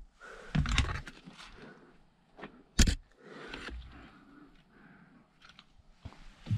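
Irregular scrapes and crunches, with one sharp knock nearly three seconds in.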